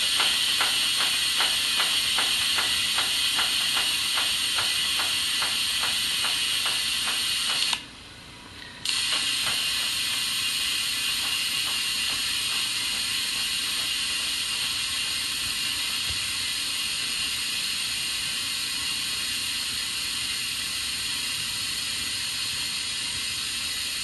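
Compressed air hissing steadily through a tyre inflator chuck into a flat tyre, with a rapid even ticking at about three to four a second for the first eight seconds. About eight seconds in the airflow stops for about a second, then the hiss resumes and runs on steadily without the ticking.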